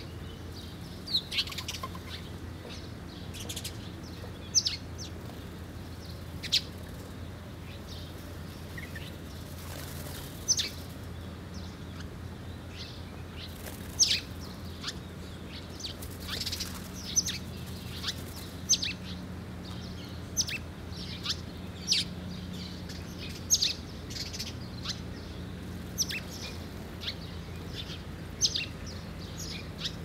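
Birds giving short, sharp, high chirps, each dropping in pitch, scattered irregularly and often, over a steady low hum.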